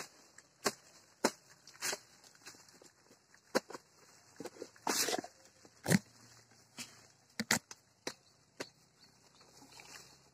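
A long steel digging bar stabbed repeatedly into earth and roots, about a dozen sharp strikes at an uneven pace, roughly one or two a second, the loudest about six seconds in. Around five seconds in there is a brief tearing rush.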